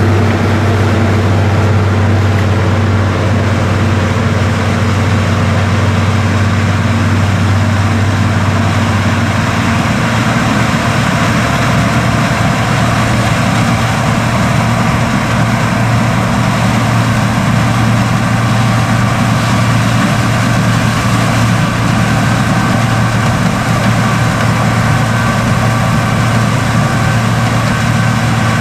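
Diesel engine and harvesting machinery of John Deere Titan corn combines running steadily at work, a continuous heavy hum whose low note shifts about ten seconds in.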